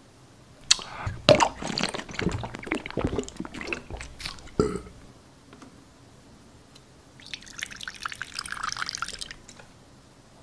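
A plastic bottle of blue mouthwash is handled, making a run of sharp clicks and knocks. Near the end comes about two seconds of liquid pouring.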